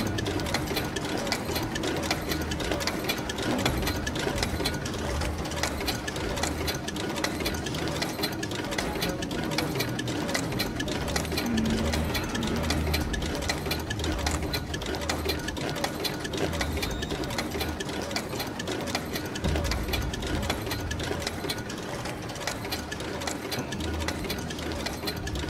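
A small machine running steadily, with a fast, even clatter of ticks over a low hum.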